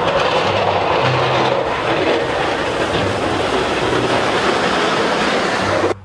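Volvo wheel loader's diesel engine running as its plow blade pushes and scrapes through snow: a steady, dense rushing noise over a low engine drone.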